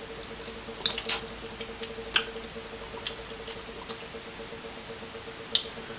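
Snow crab leg shells being cracked and pulled apart by hand close to the microphone: a few sharp snaps and wet clicks, the loudest about a second in, over a faint steady hum.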